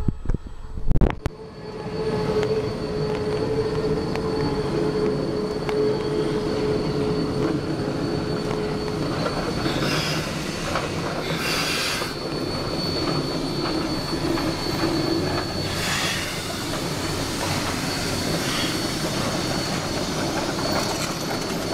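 A train of flatcars and Shay geared steam locomotives, among them Western Maryland Shay No. 6, rolling slowly past close by on a curve. The wheels give a steady squeal for the first several seconds, and there are louder hissing bursts around ten to twelve seconds in and again at sixteen. A few sharp knocks sound about a second in.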